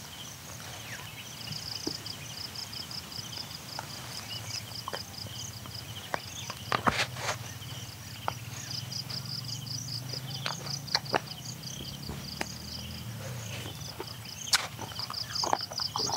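Insects chirping in rapid pulsed trills that come and go, with scattered sharp clicks and knocks, the loudest about seven seconds in and again near the end.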